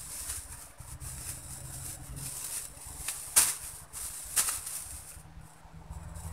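Leaves and stems rustling as someone reaches into dense bushes, with two sharp snaps about a second apart a little past the middle.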